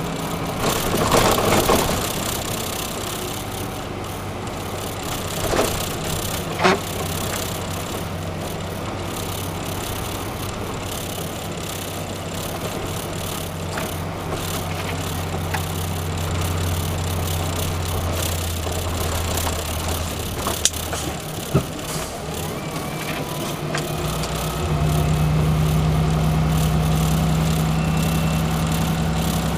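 Truck's diesel engine running on the move, heard from inside the cab, with tyre noise and rattles. About 25 seconds in, the engine gets louder and its note goes up. A few sharp knocks sound along the way.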